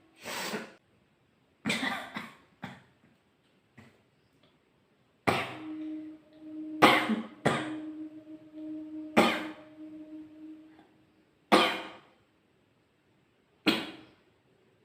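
A woman's short, sharp, cough-like bursts of breath, about ten of them a second or two apart, as she tries to force a sneeze. A steady low hum runs under the middle few seconds.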